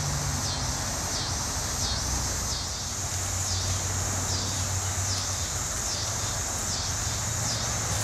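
Linne's cicada (Neotibicen linnei) singing: a steady high buzz that pulses about one and a half times a second, over a low steady hum.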